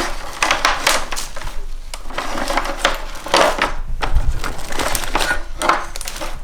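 Parts and wiring being handled and shifted about: an irregular run of knocks, clicks and scraping rustles.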